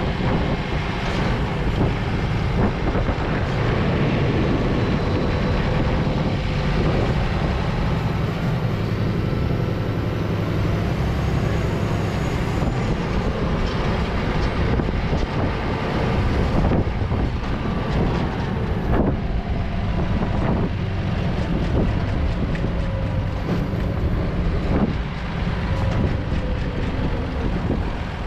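Type 73 large truck running, heard from its open cargo bed: a steady diesel engine rumble with short knocks and rattles every few seconds.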